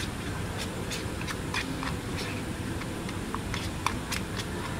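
Glue-and-detergent slime being stirred with a plastic stick in a plastic bowl: irregular small clicks and taps, about two or three a second, over a steady low rumble.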